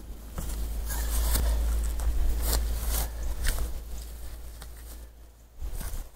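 Rustling and footsteps on dry grass as a person gets up off the ground and walks, with a series of short knocks and scuffs over a steady low rumble.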